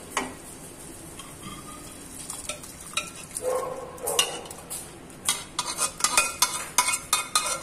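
Boiled chana dal poured out of a steel pressure cooker into a kadai of cooked spinach, with wet sloshing and metal scraping. In the last two or three seconds comes a quick run of sharp metallic taps and clinks as the cooker is tipped and knocked against the pan.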